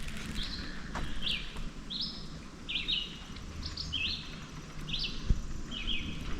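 A bird calling a short note over and over, a little more than once a second.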